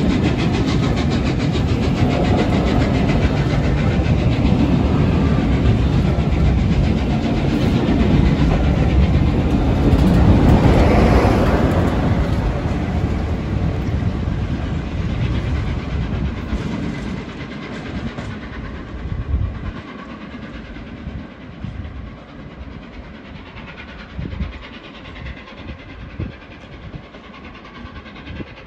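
Rake of passenger coaches rolling past with steady wheel rumble and clatter, loudest around ten to twelve seconds in as the diesel locomotive on the tail end goes by. The train then fades away into the distance, leaving a few scattered clacks of wheels over rail joints.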